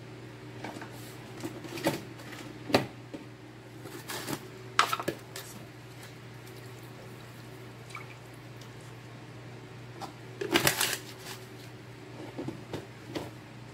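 Rice and water being stirred in an aluminium pot: scattered clicks, taps and small wet sounds, with a cluster of taps a little past the middle, over a steady low hum.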